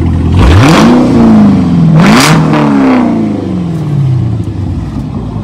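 Cadillac CTS-V's supercharged V8 starting: it flares up in revs as it catches, is revved once more about two seconds in, then falls back toward idle.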